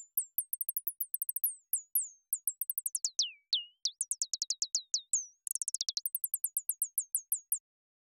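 Synthesized bird tweets from a u-he Zebra 2 patch: a fast looping train of short, high falling chirps, several a second. Their pitch depth and speed shift as the XY pad controls are swept, and around three seconds in the chirps drop much lower. The chirps stop shortly before the end.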